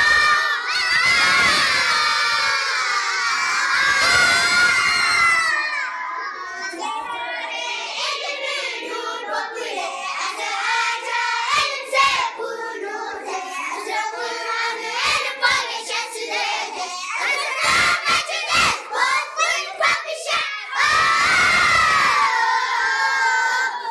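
A class of young schoolchildren singing a school prayer together in unison, many voices at once, strongest in the first few seconds and again near the end.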